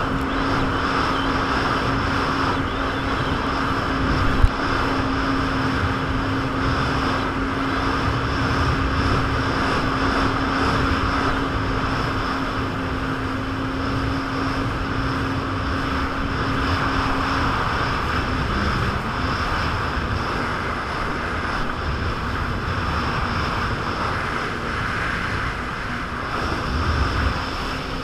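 Jet ski running at speed, with wind buffeting the camera and water rushing past the hull. A steady engine note drops out about two-thirds of the way through, and there is a single knock a few seconds in.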